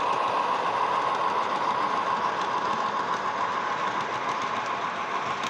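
Model train running on the layout's track: a steady whirring rumble of the motor and wheels on the rails.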